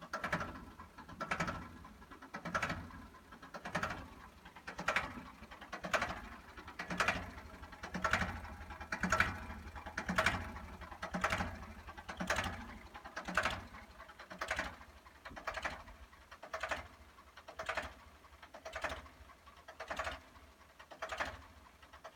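Ford 3600 tractor's three-cylinder engine running at a steady idle, a low drone with a regular clattering pulse that comes back about once a second.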